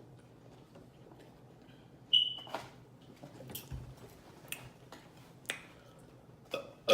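A run of sharp mouth clicks and smacks, about one a second, the first and loudest about two seconds in with a brief squeak. A burp begins right at the end.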